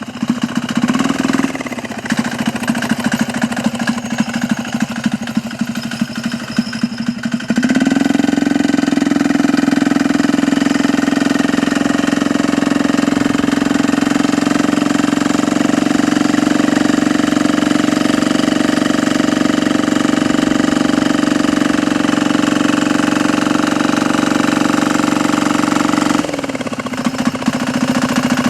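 Small 198 cc single-cylinder diesel engine just started, idling with an uneven, choppy clatter, then opened up about eight seconds in to a steady, faster and louder run that holds for most of the time before dropping back to the choppy idle near the end.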